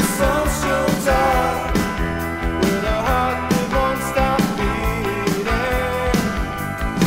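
1980s power-pop / post-punk rock recording played from a vinyl LP: a full band with a steady drum beat under sustained, slightly bending melody lines.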